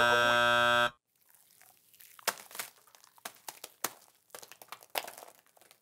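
A buzzer sound effect, a steady tone lasting about a second, then thick slime pouring onto a person's head with irregular wet crackles and splats.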